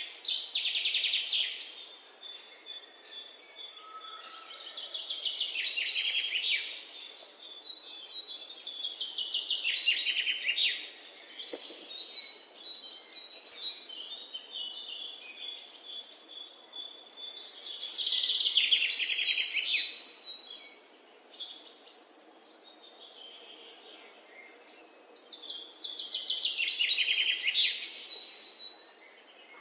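Birds singing: several rapid trills of about two seconds each, falling in pitch, with a run of quick, even high chirps between them.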